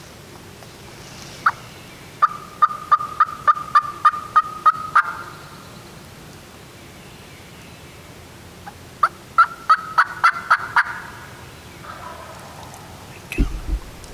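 Two runs of loud, sharp hen-turkey yelps on a turkey call, about eight to ten evenly spaced notes each, a few seconds apart: a hunter calling to locate a gobbler. A low thump sounds near the end.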